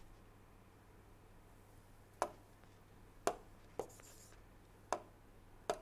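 Stylus tip tapping on a tablet screen while handwriting: five faint, sharp clicks at uneven intervals, starting about two seconds in.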